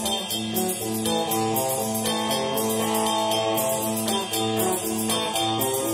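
Rock band playing: an electric guitar plays a repeating riff while cymbal ticks keep a steady beat.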